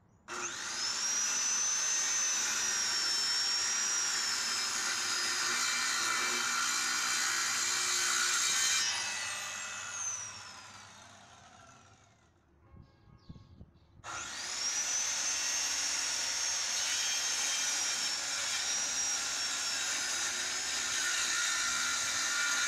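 Promaker PRO-SC1500 1500 W circular saw with a 24-tooth blade starting up and cutting through a 4 cm pine board, its high motor whine sagging a little under load, then winding down about nine seconds in. After a short lull with a few small knocks it starts up again about fourteen seconds in for a second cut and keeps running.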